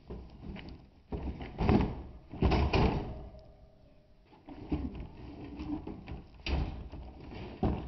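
Empty IBC tote, a plastic tank in a steel wire cage, being shoved and dragged across the ground: a series of clanks, thumps and rattles from the cage and tank, loudest about two seconds in.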